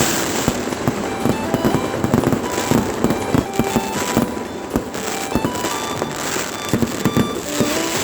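New Year fireworks display: a dense, continuous string of bangs and crackles from many overlapping shells.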